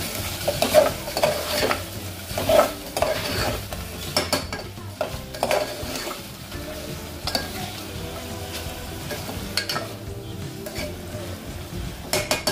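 A steel spoon stirring and scraping fried meat koftas through masala in an aluminium pressure cooker, with the oil and spices sizzling. Near the end there is a quick run of metal clinks.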